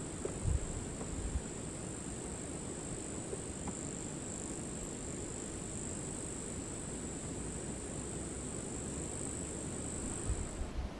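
Insects buzzing in one steady, high-pitched drone that stops suddenly near the end, over a low, even rumble.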